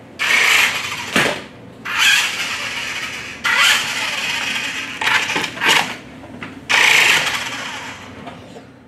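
Battery-powered remote-control toy motorcycle's small electric motor whirring in about six short bursts as the throttle is worked, each starting abruptly and dying away.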